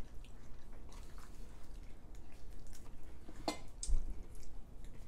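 People eating chicken wings: soft wet chewing and smacking sounds and scattered small clicks as the meat is pulled from the bones by hand, with one louder sharp click about three and a half seconds in.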